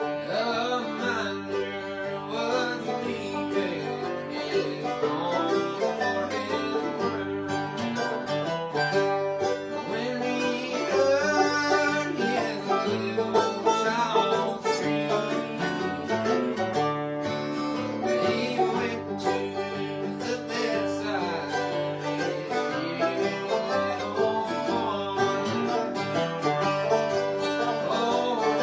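Bluegrass picking on banjo and guitar: a fast run of plucked notes over a steady bass line.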